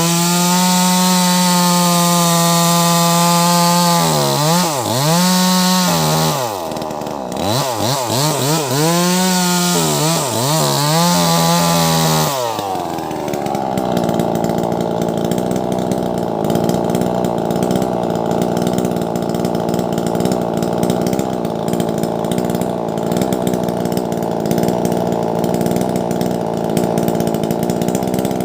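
Wagner 580 two-stroke chainsaw with a 16-inch bar cutting a big log, running at high revs. Its pitch dips and recovers several times, then about twelve seconds in the tone drops and settles into a steadier, rougher note.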